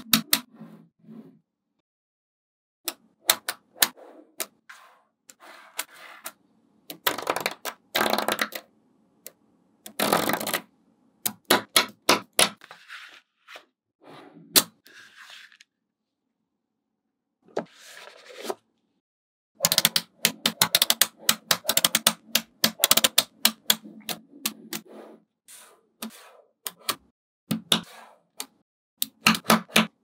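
Small magnetic balls clicking and snapping together as they are set in place, in irregular runs of sharp clicks with short pauses. A few longer rattling stretches come in between the runs.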